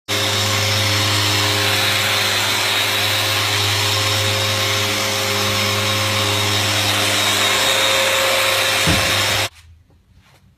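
Festool random orbital sander and its dust extractor running steadily as the sander works across the face of a walnut slab. The machine noise stops abruptly about nine and a half seconds in, leaving only faint clicks.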